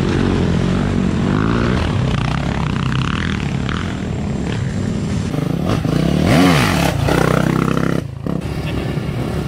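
Dirt bike engine running under the rider, its pitch wavering with the throttle over a rough track, with one quick rev up and back down a little past the middle. Near the end the sound cuts abruptly to other dirt bikes running.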